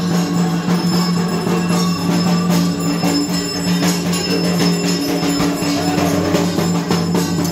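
Music: a steady low drone held throughout, with light jingling percussion over it.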